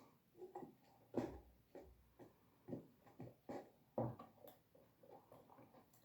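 Soft handling sounds of paper and a glue stick being worked on a tabletop: scattered light taps, rustles and a few knocks, the loudest about a second in and again about four seconds in.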